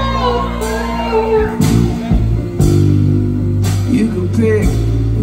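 Live band music: a strummed acoustic guitar with drums and sustained chords underneath, with voices rising over the music in places.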